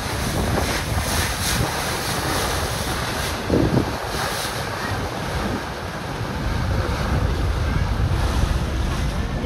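Wind buffeting the microphone over the steady rush of water around a moving tour boat, with one short louder moment about three and a half seconds in.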